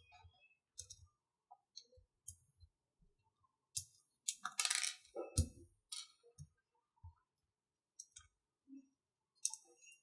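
Small RC kit parts clicking and clinking as they are picked up and set down on a work surface, with a louder burst of handling noise about four and a half seconds in.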